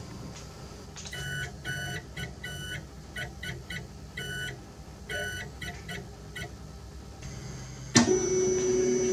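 Morse code beeps: a pitched tone keyed on and off in short and long elements, spelling out the ham-radio call 'QST DE', over a low hum. About eight seconds in a louder, steady electronic tone begins suddenly.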